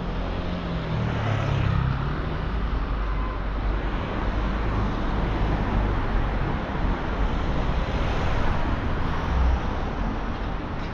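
Road traffic on a city street. A motor scooter's engine passes close by in the first couple of seconds, then a van and cars drive by over the steady hiss of tyres and engines.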